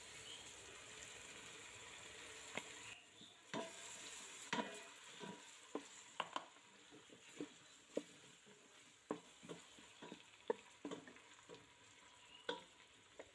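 Wooden spatula stirring sliced onions and ginger-garlic paste frying in oil in a steel pot. A faint sizzle at first, then from about three seconds in, scattered scrapes and knocks of the spatula against the pot.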